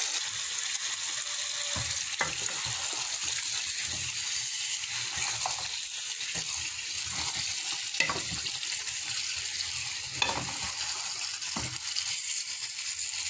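Spice paste sizzling in hot oil in a metal pot, fried to the stage where the oil has separated, as raw chicken pieces and potatoes are stirred in with a wooden spatula. A steady frying hiss runs under short scrapes and knocks of the spatula against the pot every couple of seconds.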